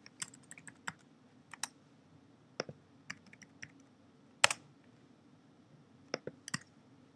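Computer keyboard keystrokes, sparse and irregular, coming in small clusters with pauses between; the sharpest click is about four and a half seconds in.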